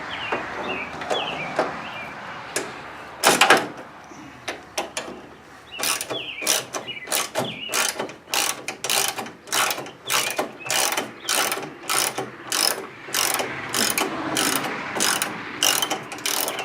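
A ratcheting hand tool clicking as screws are backed out: a loud knock about three seconds in, then a steady run of ratchet clicks at about two strokes a second.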